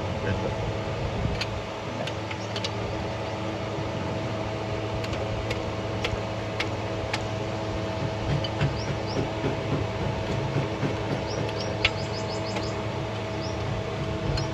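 A steady mechanical hum with a low drone, with scattered sharp metallic clicks and a run of short high ticks over the second half.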